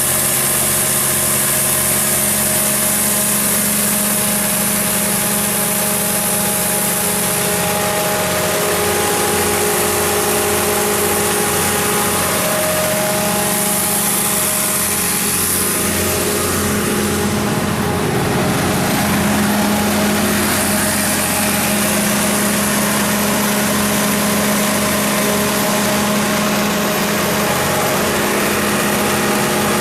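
Doosan Cummins G290 portable diesel generator's engine running steadily at a constant speed, a continuous even drone.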